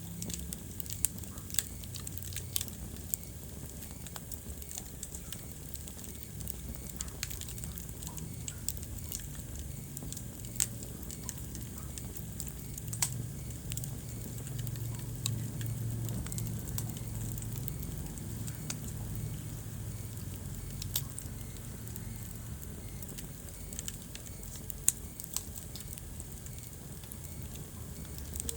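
Wood fire burning in a fireplace: a steady low rumble of flame with irregular crackles and occasional sharp pops of burning logs.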